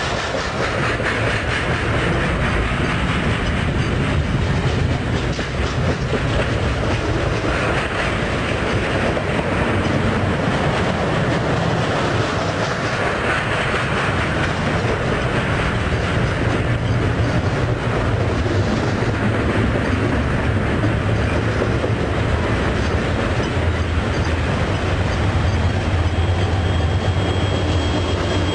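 Train running on the rails: a steady rumble with the clickety-clack of wheels over the track, and a low hum that comes in strongly about three-quarters of the way through.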